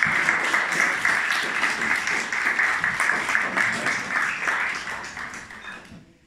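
A roomful of guests applauding, a dense patter of many hands clapping that dies away near the end.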